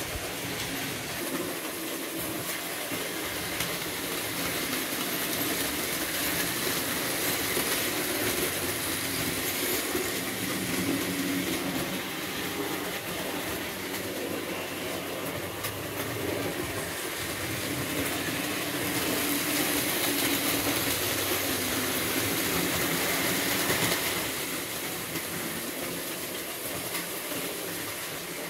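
Märklin model trains running on metal track: a steady clatter of small wheels and motors that grows louder twice for several seconds as trains pass close.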